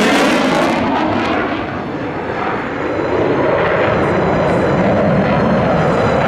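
Military aircraft making a low pass: loud engine noise with the sweeping pitch of a flyby, dipping slightly about two seconds in and then holding steady.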